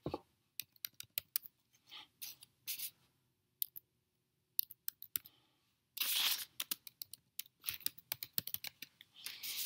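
Typing on a computer keyboard: irregular runs of key clicks as a search phrase is entered. Two short hissing sounds come through, one about six seconds in and one near the end.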